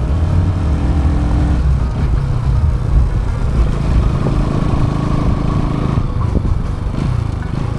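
Bajaj Pulsar NS200's single-cylinder engine running steadily as the motorcycle is ridden along.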